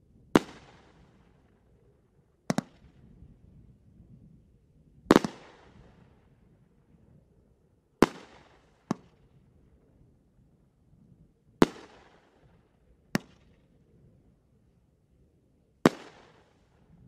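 Go Go Gorilla consumer fireworks cake firing shot by shot: five loud, sharp bangs about three to four seconds apart, each trailing off in a fading echo, with three quieter bangs in between.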